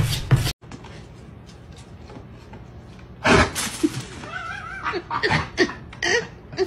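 Music with a steady beat cuts off about half a second in. After a quieter stretch, a sudden loud sound comes about three seconds in, followed by an animal's short rising-and-falling calls.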